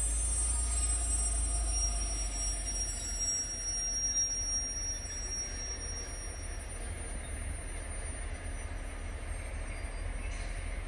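Low, steady rumble of a diesel track-construction train in a rail yard, with a faint high wheel squeal that fades out about halfway through.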